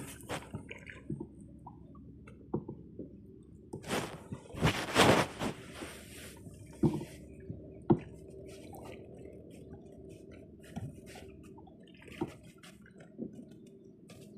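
Water dripping and splashing beside a kayak, with scattered small knocks and a louder splash about four to six seconds in.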